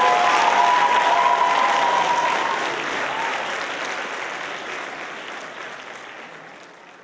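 Audience applauding, fading steadily away over the last few seconds.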